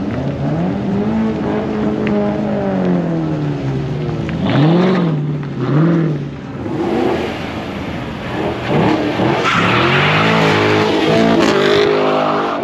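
Car engines revving through loud exhausts, the pitch rising and falling in long sweeps. There are two quick rev blips about five seconds in, and a harsher rush of noise over a climbing rev in the last few seconds.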